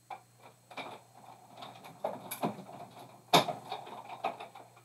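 Big Shot hand-cranked die-cutting machine in use, punching a circle out of cardstock with a metal circle die: a run of irregular clicks and knocks, the sharpest about three and a half seconds in.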